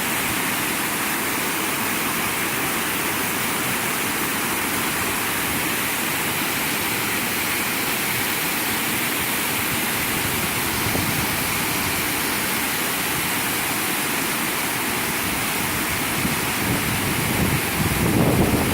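A circular waterfall rushing steadily, a dense even roar of falling water. Near the end, wind buffets the microphone with a low rumbling.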